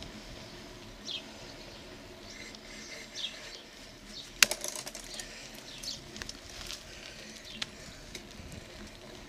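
Bicycle riding along a paved path, heard through a bike-mounted action camera: light clicks and rattles, with one sharp knock about four and a half seconds in, over a faint steady hum.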